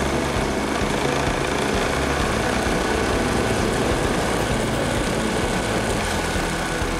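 Motorcycle engine running steadily while riding, mixed with rushing wind and road noise.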